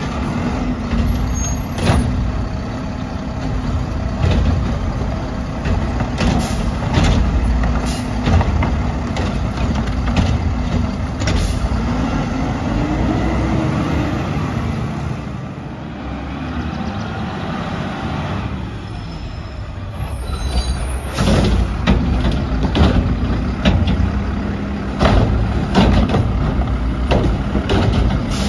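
Mack LR garbage truck with a McNeilus Contender front-loading body and Curotto Can running, its engine revving up and settling back once about halfway through. Throughout are repeated sharp clanks and bangs of metal, along with air-brake hisses.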